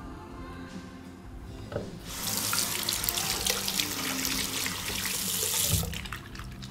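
Water running from a kitchen faucet over hands being washed at a stainless steel sink. It starts about two seconds in and stops shortly before the end, over faint background music.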